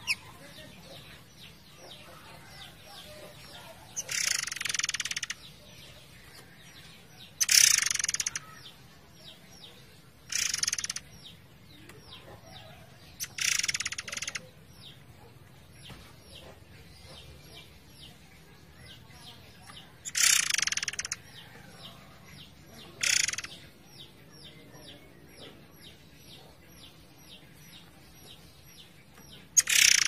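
Murai air songbird singing: loud bursts of song every few seconds, seven in all, with a fast run of short repeated chips between them. A faint steady rush of flowing water lies underneath.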